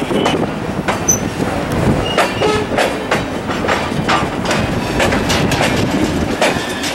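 Freight cars, a covered hopper and a scrap-metal gondola, rolling through a rail yard: steel wheels clacking over rail joints and switch points, with repeated metallic clanks and a few brief wheel squeals.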